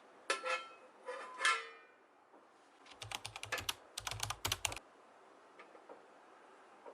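Two short, lightly ringing clinks, then about two seconds of rapid light clicking in two quick runs, like typing on a keyboard.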